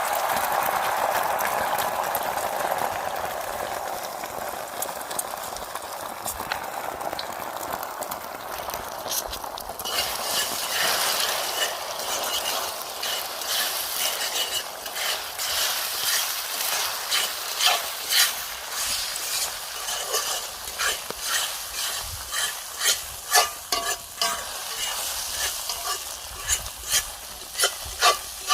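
Eggs frying in a hot pan: a steady sizzle that turns into sharper crackling and spitting pops from about ten seconds in, with loud pops coming more often near the end.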